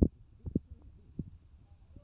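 Irregular low thuds and rumbles of a buffeted handheld phone microphone, over a faint low hum.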